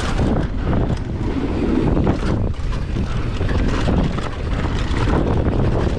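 Wind buffeting the microphone at speed while the tyres of a Commencal Meta AM 29 enduro mountain bike roll hard over rocky dirt. The bike clatters and knocks again and again over the rough ground.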